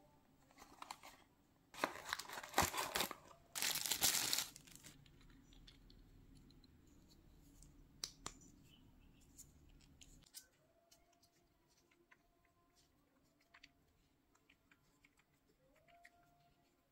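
Packaging torn open and crinkled in two loud bursts, about two and four seconds in, followed by scattered light clicks and taps of handling.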